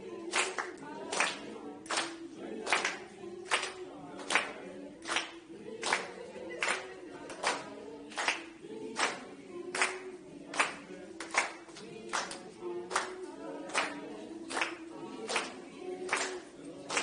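A group of voices singing a cappella in sustained tones, with hand-clapping keeping a slow, steady beat, a little under one clap a second.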